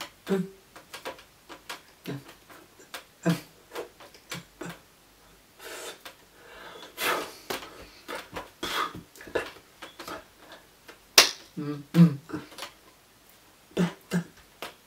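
Hands clapping and slapping together as a person signs in sign language, with many sharp clicks and one sharper slap near the end. Puffs of breath and short grunt-like mouth sounds come between the clicks.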